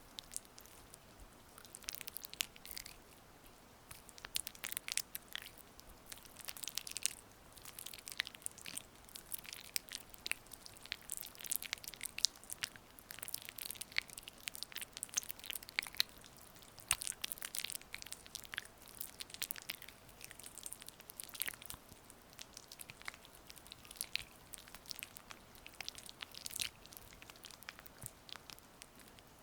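Oiled hands rubbing and pressing, close to the microphone: soft, irregular wet crackles and clicks that come in clusters.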